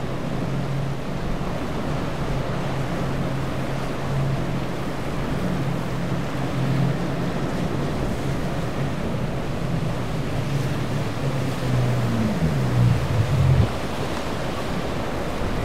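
Quad Mercury outboards on a Freeman 42LR center-console running through choppy water: a steady low engine drone over the rush of waves and wind buffeting the microphone. Near the end the drone shifts pitch, swells, then cuts off suddenly, leaving only the surf and wind.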